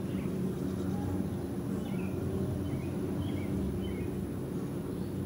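Outdoor ambience: small birds chirping now and then over a steady low hum.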